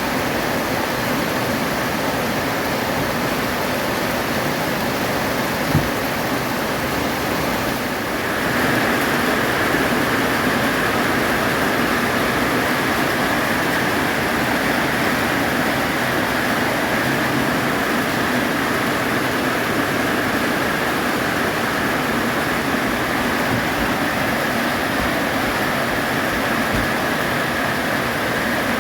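Heavy rain falling steadily, a dense, even hiss that grows louder about eight seconds in. There is one short knock about six seconds in.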